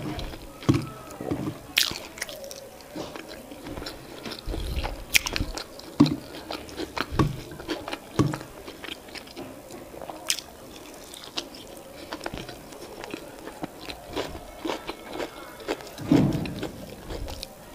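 Close-miked mouth sounds of a person eating soft boiled yam and sweet potato with vegetable sauce: wet chewing and lip smacks, with irregular sharp clicks.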